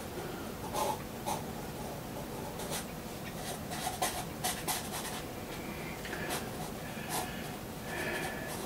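A charcoal pencil sketching on sketch-pad paper: short, irregularly spaced scratchy strokes.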